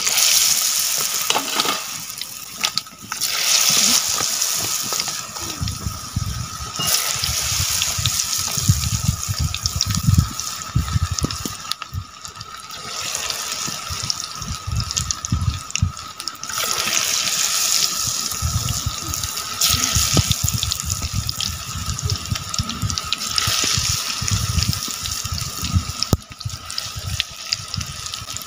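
Cauliflower pakoras deep-frying in hot oil in an iron karahi: a loud sizzle that swells and eases several times, with low rumbles underneath.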